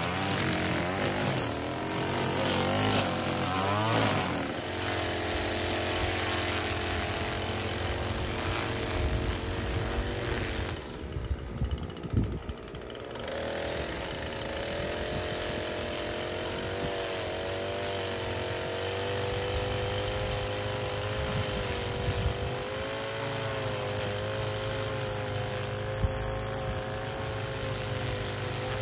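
String trimmer running steadily, its line head cutting grass; the engine's pitch wavers slightly as it works.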